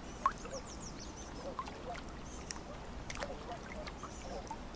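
Ducks calling on a lake, short scattered calls mixed with quick high bird chirps, over a low steady background hum. A single sharp click about a third of a second in.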